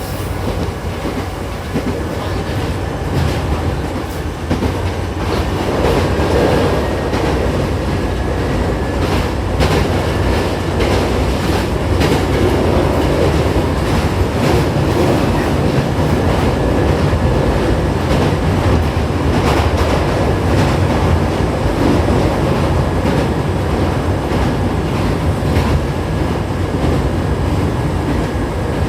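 Hankyu 7000-series electric train running between stations, heard inside the car: a steady running rumble with the wheels clacking over rail joints, growing louder a few seconds in.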